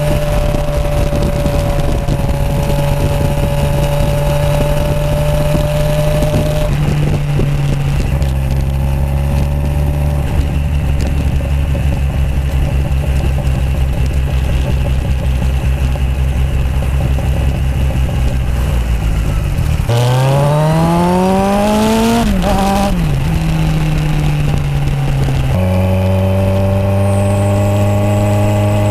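Kawasaki Z1000SX inline-four engine through aftermarket Toce three-port exhausts, heard from the rider's seat while riding. It holds a steady note, changes pitch a few times, and about twenty seconds in revs hard, rising for about two seconds. Then the note drops back and settles steady again.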